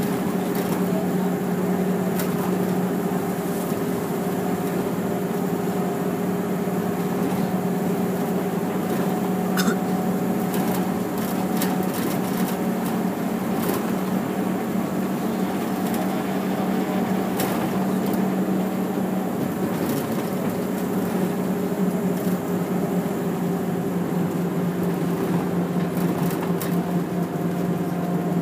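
Route bus heard from inside the cabin: a steady engine hum at an even pitch, with scattered light clicks and rattles from the bus interior.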